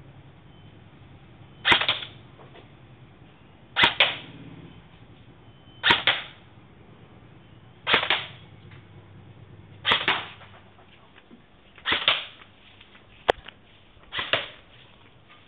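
Classic Army SR-25 airsoft rifle firing single shots, a sharp snap each time, seven shots about two seconds apart, with one extra sharp click shortly before the last.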